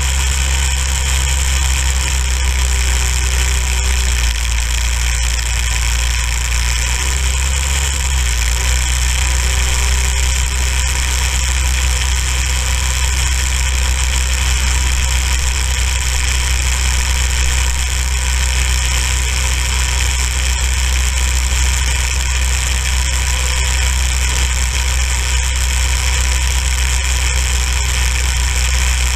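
Go-kart's small single-cylinder engine running at a steady speed as the kart drives along a snowy road, with little change in pitch.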